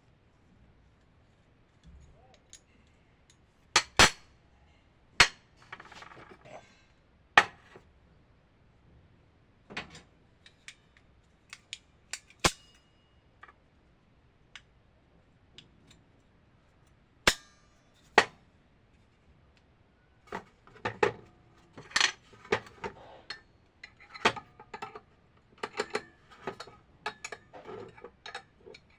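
Sharp metallic clicks and clinks of hand tools and small metal parts being handled and set down, a few scattered knocks at first, then a busy run of taps and clinks in the last third.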